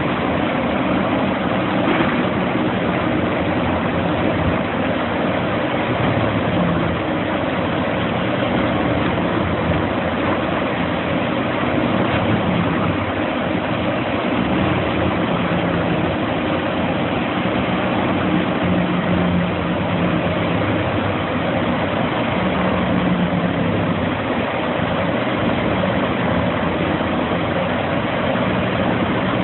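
Diesel engine of a Vermeer HG6000 horizontal grinder running steadily at idle.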